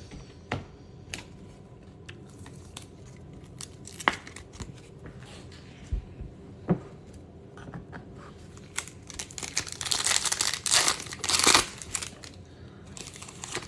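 A trading card pack wrapper being torn open and crinkled, a rustle lasting about three seconds near the end, after scattered light taps and clicks.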